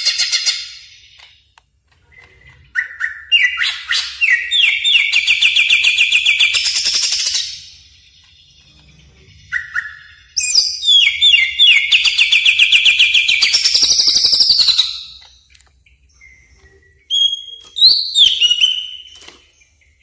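Cucak ijo (greater green leafbird) singing: two long phrases of rapid repeated notes, each about five seconds, rising in pitch toward the end. A few short, sharp whistled notes follow near the end.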